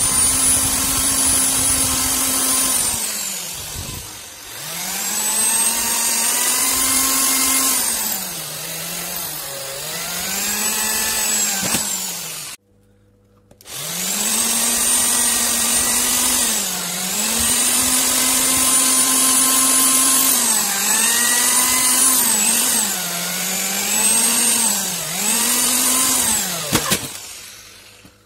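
Electric drill boring holes through sheet metal: the motor whine dips as the bit bites under load and climbs back as it eases, over and over. It stops for about a second near the middle, then starts again.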